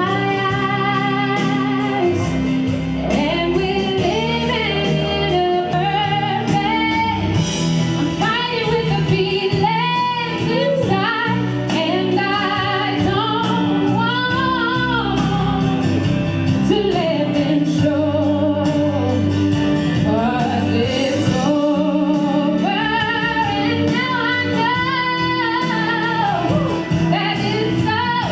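A woman singing solo into a microphone with strong vibrato and long held notes, over steady sustained instrumental accompaniment.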